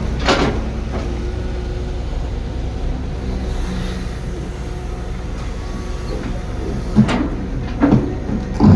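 Heavy construction machine's diesel engine running with a steady low drone, with a clank just after the start and several more metallic knocks in the last two seconds.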